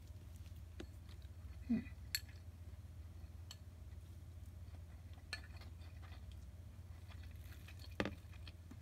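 A few light clinks of chopsticks and a ceramic rice bowl being handled at the table, the last as the bowl is set down near the end, with a short low sound a little under two seconds in and a steady low hum underneath.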